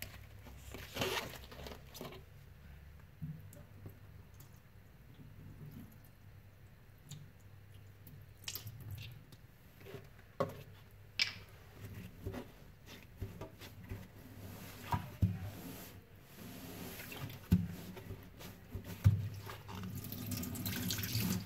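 Liquid detergent dripping onto a sponge in a stainless steel sink, with scattered small taps and drips, then rubber-gloved hands squeezing the soapy sponge, a wet squishing near the end.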